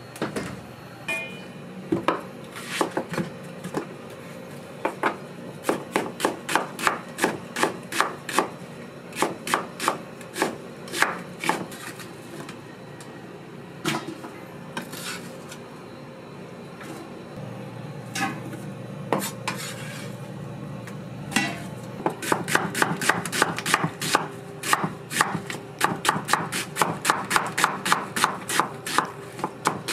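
Knife chopping on a cutting board: scattered, uneven strokes at first, settling in the last third into fast, steady chopping of about four strokes a second, over a steady low hum.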